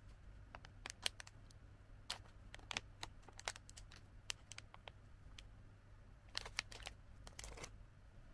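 Plastic film gummy pouch being handled and torn open by hand across its top, giving runs of sharp crinkling and crackling clicks in several clusters, the last bunch near the end.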